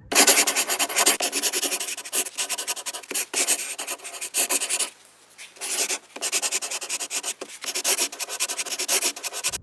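Rapid scratchy rubbing strokes, many a second, with a short pause about five seconds in.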